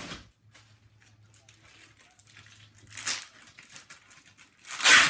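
Packaging crinkling as it is handled, in short bursts, with the loudest rustle near the end.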